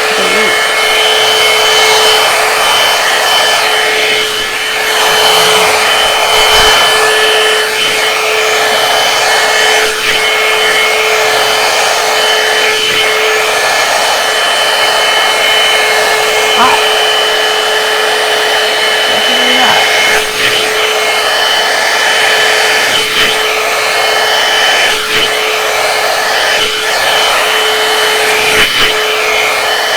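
Electric blow-dryer round brush running steadily on its smallest barrel: rushing air with a steady whine, dipping briefly now and then.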